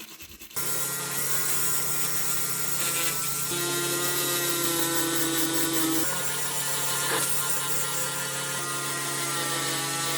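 A power tool's electric motor switching on about half a second in and running steadily with a constant hum and whine.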